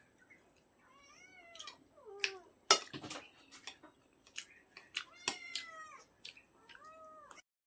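A cat meowing several times, each meow rising and falling in pitch, with one longer meow past the middle. Sharp clinks of a spoon or dish come between the meows, the loudest a little under three seconds in.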